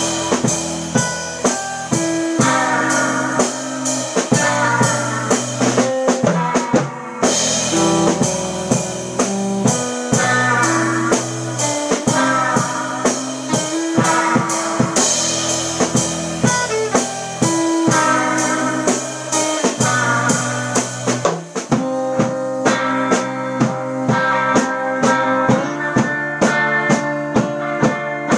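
A live band plays an instrumental surf rock tune on electric guitars, electric bass and a drum kit, with the drums keeping a steady beat under the guitar melody.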